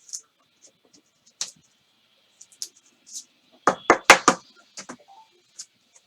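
Trading cards being handled at a table: scattered light clicks and scrapes, with a quick run of four or five louder knocks about four seconds in.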